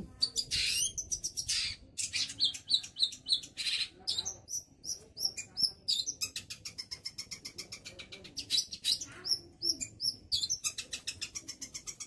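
Long-tailed shrike (cendet) singing in a rapid, near-continuous run of chattering chirps with short high whistled notes mixed in.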